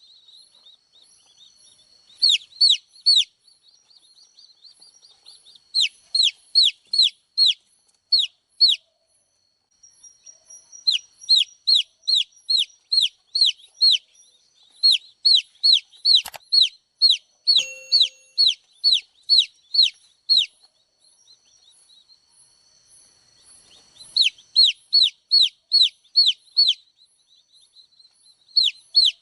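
Baby chicks peeping: runs of loud, high, short chirps, each falling sharply in pitch, about two to three a second, coming in bouts with short lulls between them.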